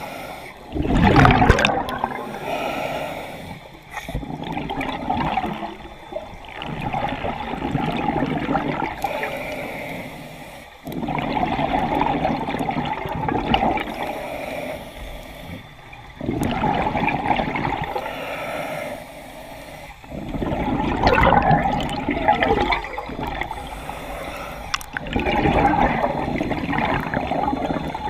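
Scuba diver's regulator breathing underwater: bubbles rush and gurgle past the housing on each exhalation, in surges about every four to five seconds, with quieter pauses for the inhale between them.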